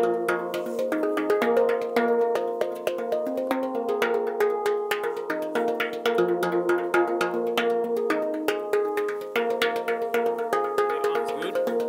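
Handpan played with the hands: a quick, steady run of struck steel notes that ring on.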